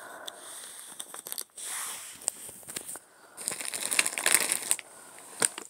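Plastic packaging crinkling and rustling as a hand rummages through items in a cardboard box. It comes in irregular spurts with a few sharp clicks, busiest about three and a half to five seconds in.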